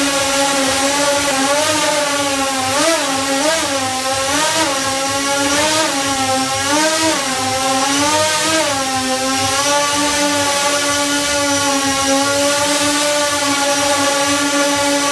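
X8 coaxial multicopter's eight brushless motors and propellers humming steadily while it hovers. The pitch dips and rises in several quick wobbles a few seconds in, from small throttle corrections, then evens out.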